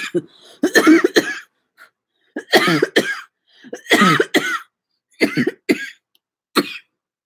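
A woman coughing in about five separate bouts after a hit of cannabis smoke from a glass pipe: the harsh cannabis cough.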